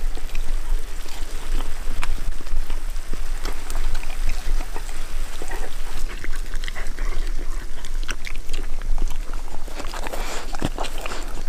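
A German shepherd puppy chewing and smacking as it eats soft chunks of meat, with many quick wet clicks, over the steady patter of rain.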